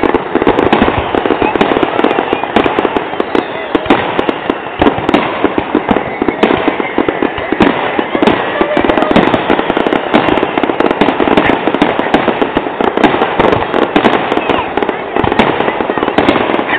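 Aerial fireworks shells bursting in quick succession: a dense, unbroken run of bangs and pops.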